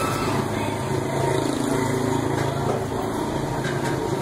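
A small engine running steadily, its pitch dipping and then rising again about halfway through.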